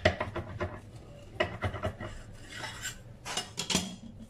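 A broad steel blade cutting through a block of parotta dough, knocking and scraping on a granite countertop. It makes sharp clicks and taps in three short clusters.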